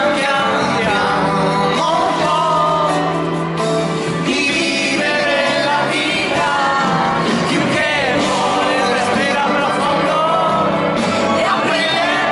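Live duet: a woman and a man singing with a band accompanying them.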